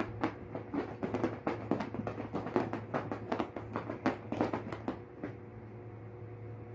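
A quick, irregular run of light taps and clicks, several a second, that stops about five seconds in, over a steady low hum.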